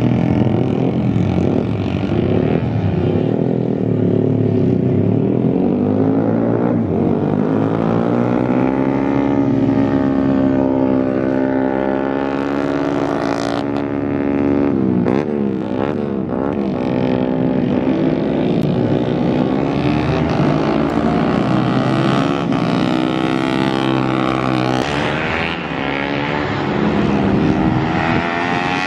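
Small road-race motorcycle engine revving hard around a tight circuit. Its pitch climbs and drops over and over as the rider accelerates, shifts and brakes, with a quick run of ups and downs about halfway through.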